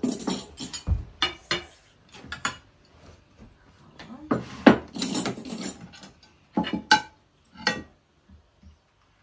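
A string of irregular sharp clicks and knocks, with some short rustling patches in between, thinning out near the end.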